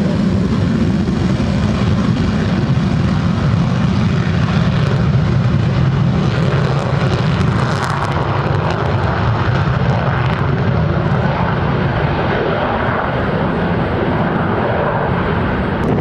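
Fixed-wing aircraft engine noise: a loud, steady rumble that does not let up.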